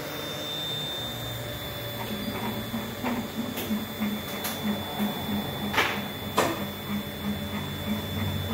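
Mini CNC router's stepper motors humming in a low, pulsing tone from about two seconds in, over a steady high whine, with a few sharp clicks.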